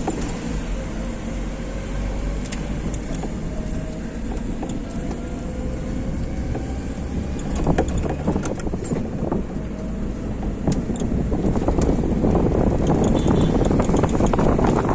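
Steady low rumble of a moving vehicle, with a faint whine slowly rising in pitch in the middle; the noise grows louder near the end.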